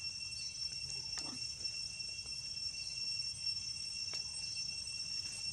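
Steady, high-pitched drone of insects, unchanging throughout, over a low background rumble, with a couple of faint clicks.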